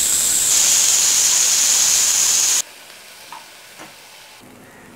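Onion paste sizzling loudly in hot oil in a frying pan, just after it went in. The sizzle cuts off suddenly about two and a half seconds in. After that only a faint sizzle remains, with a couple of light taps.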